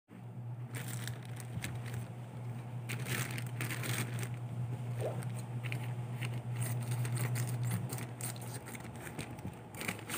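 Plastic courier pouch crinkling and rustling as it is handled and cut open with scissors, in a series of irregular crackles. A steady low hum runs underneath and stops near the end.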